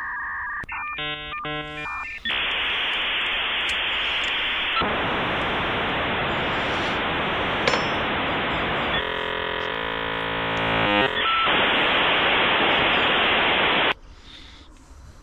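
Dial-up modem connecting over a phone line. It opens with steady paired tones, then about a second and a half of chirping handshake tones, then a long stretch of hissing static with a warbling burst of tones partway through. It cuts off abruptly near the end.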